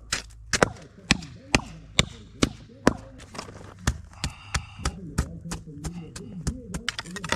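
A run of sharp knocks repeating about twice a second, evenly spaced, over a low steady background hum.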